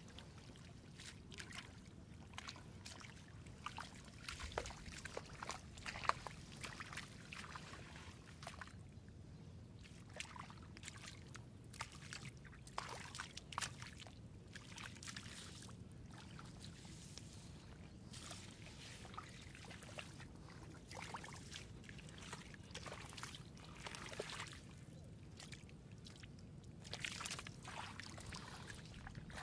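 Shallow water sloshing and splashing in many small, irregular splashes, with a steady low rumble underneath.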